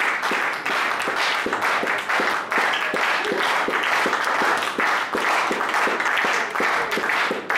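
Audience applauding, with a run of sharp, evenly spaced claps, about three or four a second, standing out from the general clapping.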